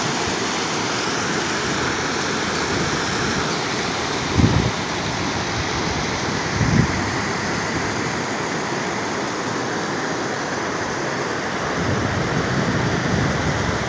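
Muddy floodwater rushing and spilling over an embankment edge, a steady roar of water. Twice, a brief low bump on the microphone.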